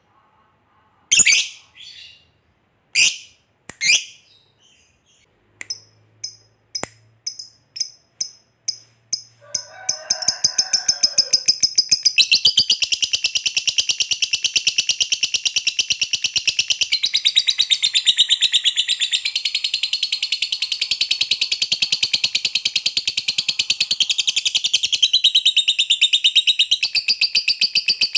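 A lovebird calling: a few separate sharp chirps, then chirps coming faster and faster, which about ten seconds in run into one long, unbroken, rapid chattering trill, the 'ngekek panjang' (long chatter) that lovebird keepers prize.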